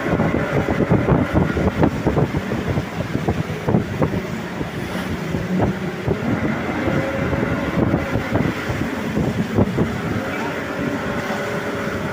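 A motorboat engine running steadily under a dense wash of rushing river-rapids water, with wind buffeting the microphone in irregular gusts.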